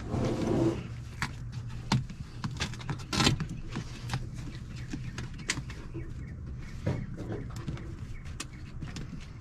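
Plastic weather cover being peeled off a car's inner door panel: rustling and crackling as the sheet pulls free from its adhesive, with a louder burst at the start and another about three seconds in, and scattered small clicks and ticks.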